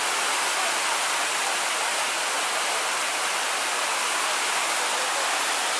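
Waterfall heard up close: a steady, loud rush of falling water.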